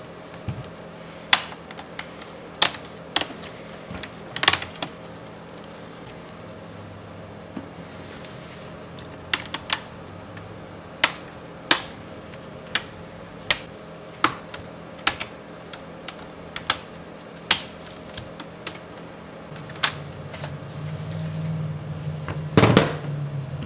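Sharp plastic clicks and taps, irregularly spaced, as a Dell laptop is worked on with hand tools to get at its hinge power button. Near the end a longer, louder rough noise builds up, with one loud snap.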